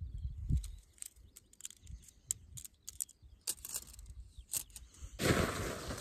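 Scattered light clicks and taps of tent pole sections being handled and fitted together, over a low wind rumble. About five seconds in, a sudden loud rustling and flapping starts as the tent fabric is lifted and shaken out in the wind.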